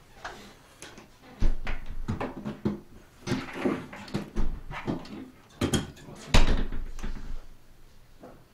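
Door lock and handle hardware being worked by hand: a string of irregular clicks and knocks as the newly fitted lock and latch are adjusted.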